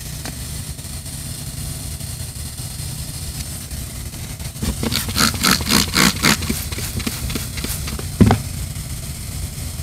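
A spray bottle squirting soapy water about nine times in quick succession onto a freshly tightened Kolbe emergency valve stem's core, a leak check on the repair; one duller knock follows. A steady low hum runs underneath.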